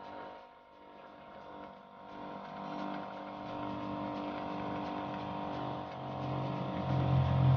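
Small electric honey-suction pump motor running with a steady hum. A louder low hum builds over the last second or so.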